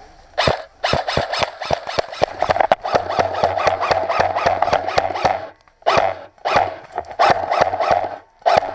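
Airsoft gun firing in rapid strings of sharp clicks over a whining motor, with brief pauses between bursts.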